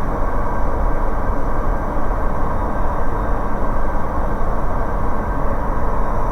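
Steady engine and propeller drone of a Bristell light aircraft heard from inside the cockpit, with the power pulled back to about 5150 rpm for the descent.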